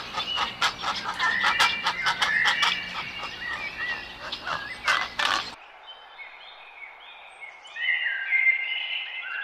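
Birds chirping over a dense run of sharp clicks, then an abrupt cut about five and a half seconds in to a quieter recording of birds calling, which builds up near the end.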